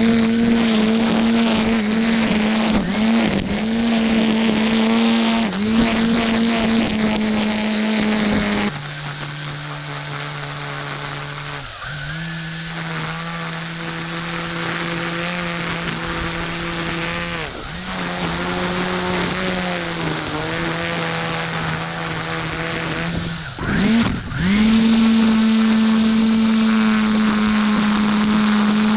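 A small petrol engine running at steady high speed, its pitch dipping briefly every few seconds as it takes load. About a third of the way in the sound changes to a lower note with a strong hiss, and near the end it returns to the first, higher note.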